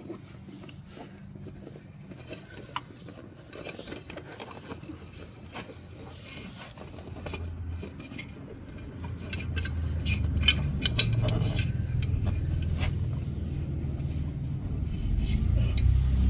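Metal parts clinking and scraping as the wheel and axle are worked back into the e-bike's frame by hand, with scattered sharp clicks. From about ten seconds in, a low rumble rises underneath and grows louder.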